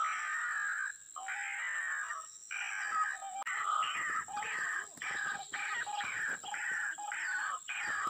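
White-breasted waterhens calling: harsh, repeated croaking notes that settle into a steady run of about two calls a second from about three seconds in.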